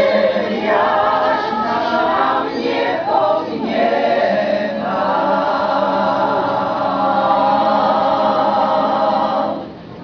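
Senior women's choir singing, closing on a long held chord that stops about half a second before the end.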